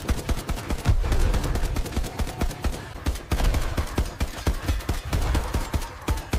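Rapid automatic gunfire in an AI-generated film soundtrack: a dense run of shots, several a second, with heavier low booms swelling in about a second in, again around the middle and near the end.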